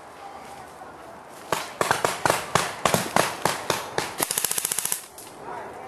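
Airsoft gunfire: a string of single shots starting about a second and a half in, then a short, rapid full-auto burst that cuts off about five seconds in.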